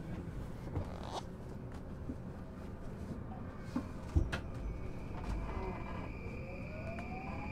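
Inside a JR East E235 series motor car: a steady rumble with a few clicks and knocks, then about six seconds in the Mitsubishi Electric SiC-MOSFET VVVF inverter and traction motors start up with a steady high tone and a whine that rises in pitch as the train begins to accelerate.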